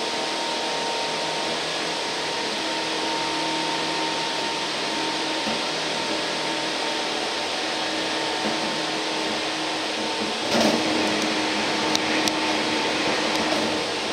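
Running noise inside a Tokyu 8500-series electric commuter car under way: a steady rumble of wheels and traction motors with a few steady humming tones. About ten and a half seconds in the noise briefly swells, followed by a few sharp clicks.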